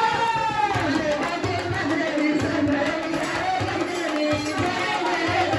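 A woman singing a Punjabi Sawan devotional song (bhajan) through a microphone, with a hand drum keeping a steady beat underneath.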